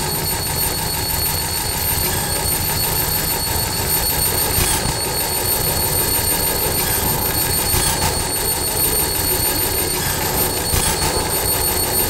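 Live electronic noise performance: a loud, dense rumble and hiss with several thin high-pitched tones held on top. Brief crackling bursts cut through about five, eight and eleven seconds in.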